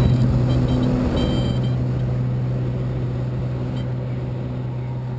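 Single-engine light aircraft's engine and propeller running at high power, heard from inside the cabin during takeoff: a steady low drone with a thick rush of noise.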